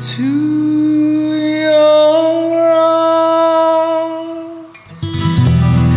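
Music: a singer holds one long note that slides up at the start, over a sustained chord. The note stops just before five seconds in, and acoustic guitar strumming comes back.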